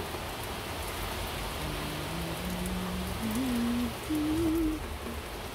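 Steady heavy rain. From about a second and a half in, a man hums a slow tune over it.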